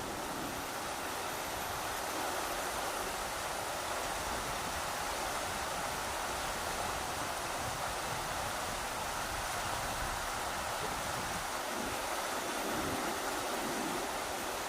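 Rushing river water, a steady, even rush, with an uneven low rumble of strong wind gusting on the microphone.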